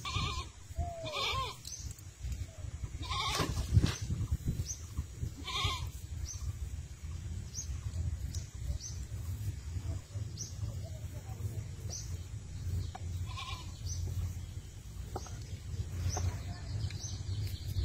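A bleating farm animal calls several times: a few short bleats in the first six seconds and one more around thirteen seconds. Under them is a steady low rumble, with faint high chirps about once a second.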